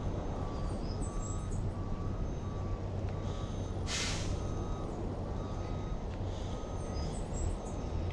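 Steady low rumble, with a faint beep repeating about twice a second and a short hiss about four seconds in.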